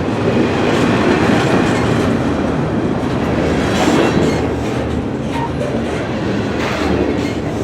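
Loaded freight cars of a long train rolling past, a steady rumble of wheels on rail with occasional sharper clacks at the rail joints.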